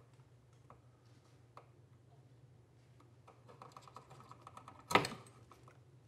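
Wire strippers working the insulation off an electrical wire at an outlet box: scattered small clicks, then a quick rattle of ticks, ending in one sharp loud clack about five seconds in.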